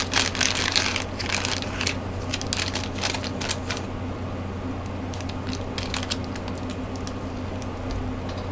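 Clear plastic accessory bags crinkling as they are handled, densely for the first few seconds, then in sparser rustles and small clicks.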